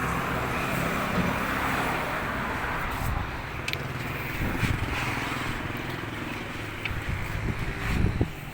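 A car's engine running steadily, with an even hiss over it.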